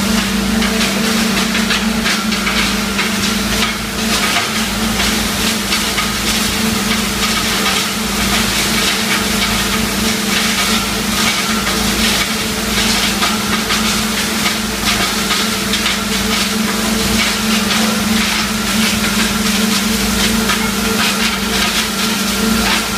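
Wood hammer mill running under load, crushing small wood blocks into sawdust. There is a steady loud machine hum under a dense, continuous crackling rattle of wood being smashed.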